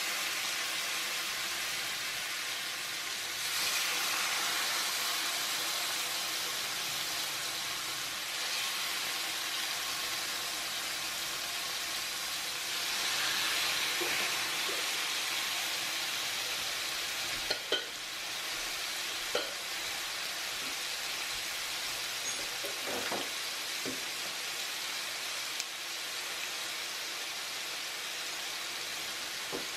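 Bone-in chicken thighs sizzling in hot oil and browned sugar in a skillet, skin side down, a steady frying hiss that swells as more pieces are laid in. A few sharp clicks of the tongs against the pan in the second half.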